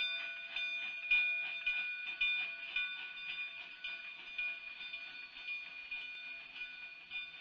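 K36 narrow-gauge 2-8-2 steam locomotive working hard as it pulls a train away, its exhaust chuffing about twice a second, loudest about a second in. A steady high-pitched tone runs underneath.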